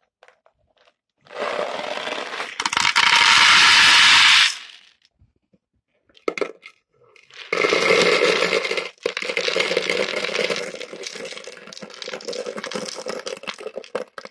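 Small plastic beads rattling and clattering in a plastic tub: a loud burst of rattling about a second in, then, from about halfway, a long stream of clattering as the beads are tipped out into a bowl.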